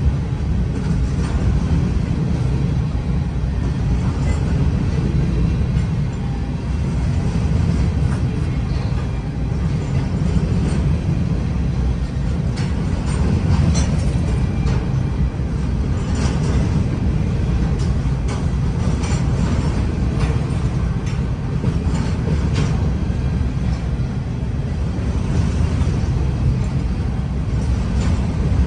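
Loaded grain train's covered hopper cars rolling past at steady speed: a continuous low rumble of steel wheels on rail, with scattered clicks and clanks.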